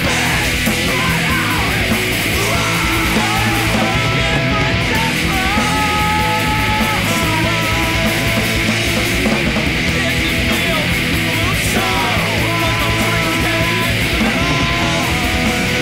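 Loud, dense punk rock band recording with distorted electric guitars, playing evenly, with a held higher melody line through the middle.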